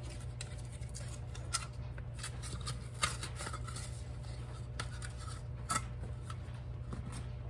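Faint, scattered clicks and light rustling of hands handling a just-opened can of refrigerated biscuit dough, over a steady low hum.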